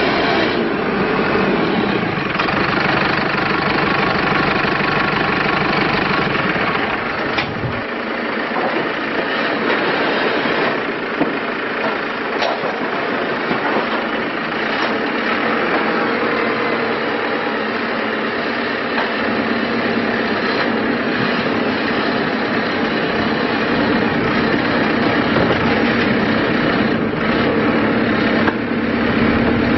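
Diesel engine of a 2012 JCB 3CX14 backhoe loader running steadily. Its low rumble drops away about seven seconds in as the engine note changes.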